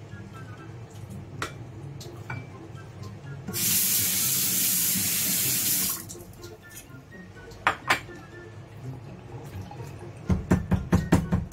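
Kitchen tap running into a stainless-steel sink as a hand is rinsed under it, a steady rush of water lasting about two and a half seconds before it is shut off. Soft background music plays throughout, and near the end a fast, even series of sharp knocks begins.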